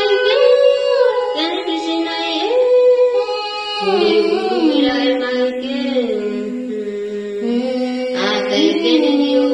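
Chant-like singing with long held notes that glide between pitches, a low sustained line under a higher melody.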